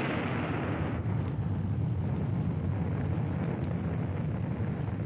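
Deep, steady rumble of a nuclear bomb explosion, a dense roar heaviest in the low end that holds at one level throughout.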